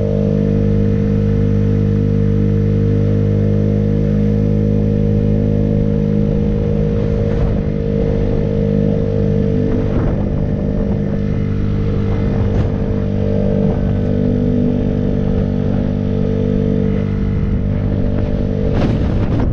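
Small motorbike engine running at a steady speed on the move, with a few knocks along the way.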